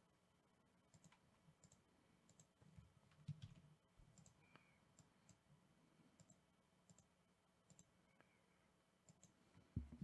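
Faint clicking of a computer mouse, scattered single clicks about one or two a second, over near silence.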